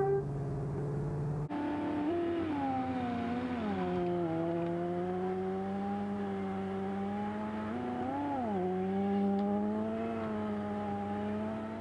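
Sport motorcycle engine held at high revs, its pitch dipping and rising with the throttle, with a quick rev up and back down about eight seconds in. The sound changes abruptly about a second and a half in.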